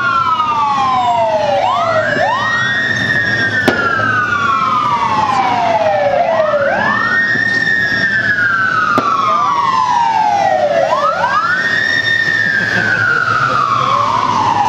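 Emergency vehicle siren wailing, each cycle rising quickly and then falling slowly, about every four and a half seconds. Each wail is doubled, slightly out of step.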